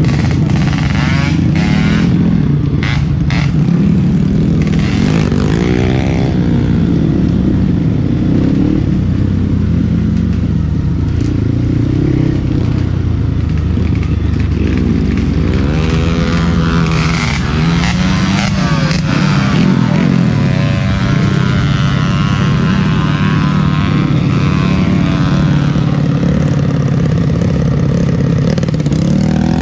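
Trail motorcycle engine running under load, its pitch rising and falling again and again as the throttle is worked. There are a few sharp knocks and clatters in the first few seconds.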